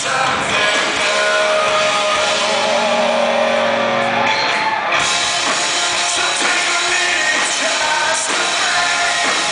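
Live rock band playing: electric guitars, bass guitar and drums with a male lead vocal singing over them.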